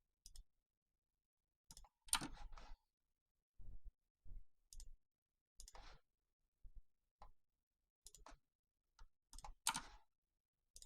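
Faint, irregular single clicks of a computer mouse, about a dozen, with silence between them and two louder clusters about two seconds in and near the end.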